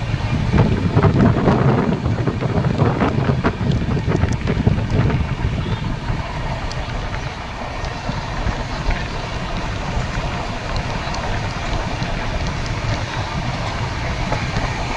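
Passenger express train running, heard from on board: a steady rumble of wheels on the rails with rushing air, and a run of sharper knocks over the first few seconds.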